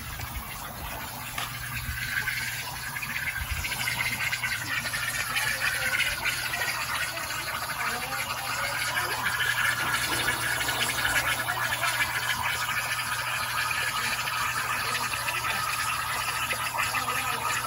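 Water pouring steadily from a pipe into a concrete fish pond, a continuous splashing trickle that grows louder over the first few seconds and then holds even.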